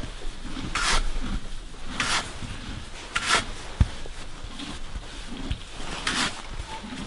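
Horse munching hay: rasping, crunching chews repeating about once a second, with soft low thuds and a single light knock about midway.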